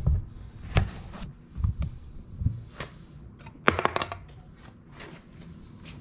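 Footsteps on a concrete floor, four low thuds under a second apart, then a sharp clatter with a brief ring and a few faint handling clicks.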